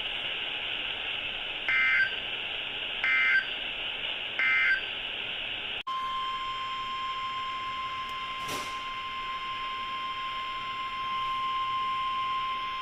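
Emergency Alert System tones on NOAA Weather Radio over radio hiss: three short warbling SAME data bursts about a second and a half apart, then the steady 1050 Hz warning alarm tone from about six seconds in, with a brief click partway through. The sequence announces a severe thunderstorm warning.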